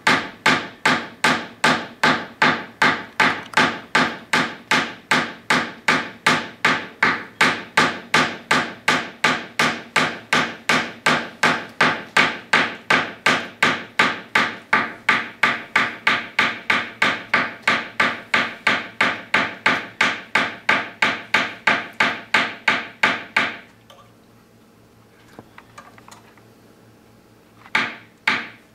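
Steel hammer striking a wire loop on a small steel anvil in an even run of sharp blows, about three a second, cold-forging the wire flat. The hammering stops about 23 seconds in, and a couple of single taps follow near the end.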